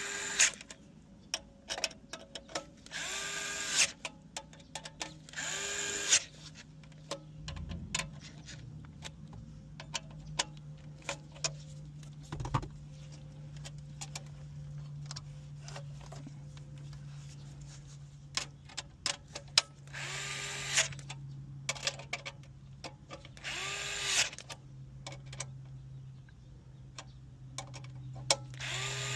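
A power drill-driver runs in five short bursts, spinning up and down, as it drives in the bolts that mount the radio head brackets. Small handling clicks come between the bursts, and a low steady hum comes in about a quarter of the way through.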